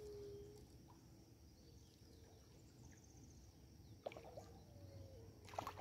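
Near silence: faint outdoor ambience with a steady faint high whine and a few brief faint clicks near the end.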